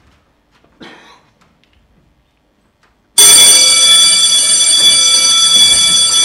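Loud electric bell ringing, starting suddenly about three seconds in after near silence and holding steady for about four seconds.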